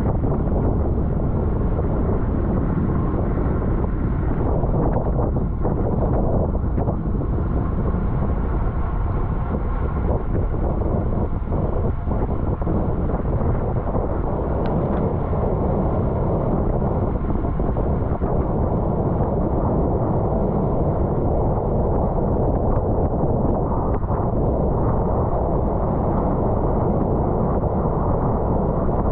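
Wind buffeting the microphone of an onboard camera on a racing bicycle ridden at race speed: a steady low rumble.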